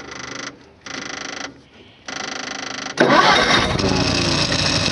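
Gehl 4400 skid steer's engine being cranked by its starter in three short tries, then catching about three seconds in and running on.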